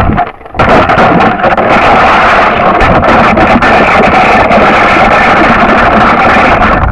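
Wind rushing loudly over the microphone of a model rocket's onboard camera, a steady roar full of small crackles. It dips briefly just after the start and falls away at the end.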